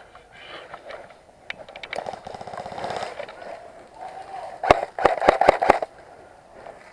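Airsoft guns firing: a quick string of about five sharp cracks inside about a second, past the middle, with fainter rapid shots and distant voices before them.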